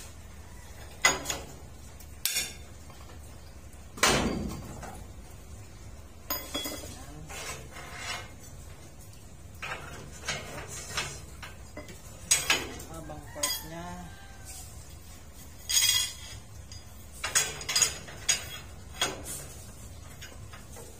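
Steel rebar and a steel pipe bending lever clanking against a steel rebar-bending jig as stirrups are bent by hand: irregular sharp metallic clinks and clanks, about a dozen, one about four seconds in ringing on briefly.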